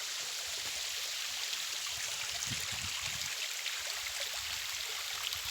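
Stream water rushing and splashing over rocks, a steady even hiss.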